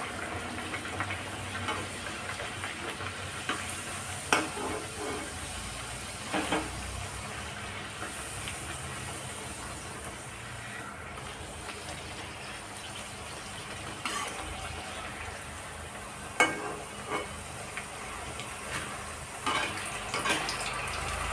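Urad dal kachori deep-frying in hot oil in a kadhai: a steady sizzle. A few sharp clicks come from the slotted spoon knocking the pan as the kachori is turned, about four seconds in, twice mid-way and near the end.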